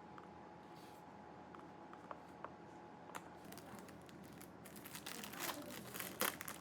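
Packaging crinkling and rustling as it is handled, building up about two-thirds of the way in after a few faint clicks.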